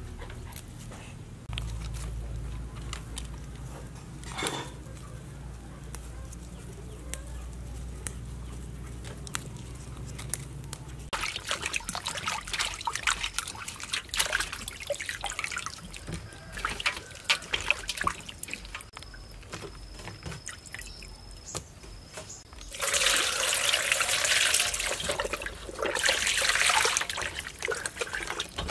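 Hands washing a whole raw chicken in a stainless steel basin of water: splashing, sloshing and trickling, louder in the last six seconds. Before that, for about the first ten seconds, only a low steady rumble.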